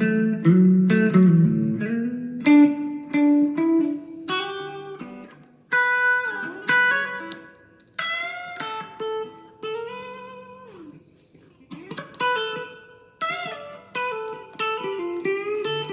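Guitar being played: plucked notes and chords that ring out and fade, with one note sliding down in pitch about ten seconds in, then a short lull before the playing picks up again.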